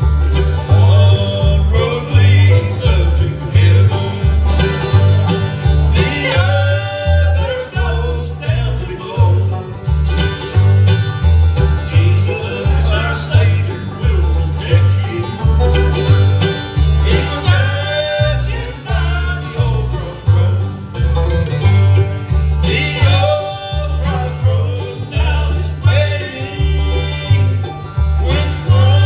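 Live bluegrass band playing a gospel song: banjo, acoustic guitar and fiddle over a pulsing bass line.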